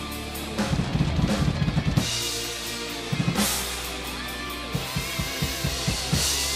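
Acoustic drum kit played hard: fast runs of bass drum and tom hits with crashing cymbals in the first two seconds, another short fill about three seconds in, and spaced hits near the end. They play over a rock backing track with sustained guitar notes.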